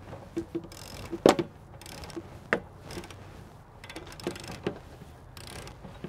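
Ratchet handle with a 1 1/16 inch socket clicking in short irregular strokes, with a few metal clicks and knocks, as a new anode rod is tightened into an RV water heater tank.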